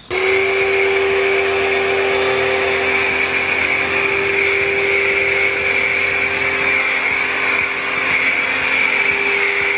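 Pecticho electric pressure washer running steadily with a foam cannon on the gun: a high, even motor-and-pump hum over the hiss of the foam spray.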